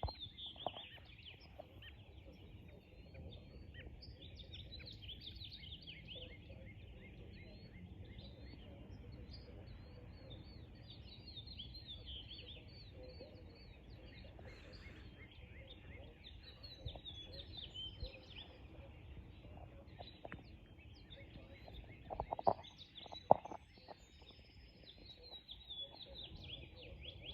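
Songbirds chirping and singing continuously over a steady low rumble, with a few sharp knocks about three-quarters of the way through.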